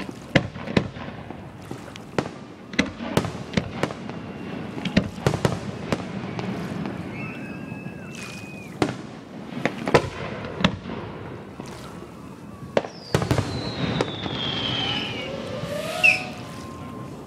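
Fireworks display: aerial shells bursting in an irregular run of sharp bangs, sometimes several close together. A falling whistle comes about three-quarters of the way through.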